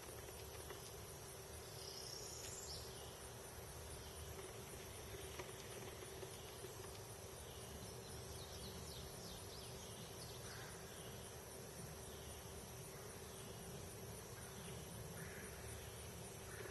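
Faint outdoor field ambience: a steady hiss with a high, evenly pulsing insect trill and a few short, faint chirps scattered through it.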